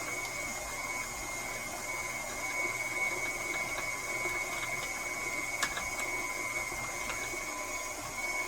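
KitchenAid stand mixer running at speed 4 with its metal food grinder attachment, grinding lamb: a steady motor hum with a constant high whine. There is a single small click about five and a half seconds in.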